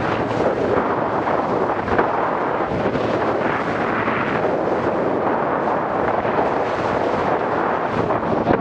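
Wind buffeting the microphone aboard a Bayliner speedboat running fast, mixed with the rush of water and spray from the hull. The noise is loud and steady, with a few brief thuds.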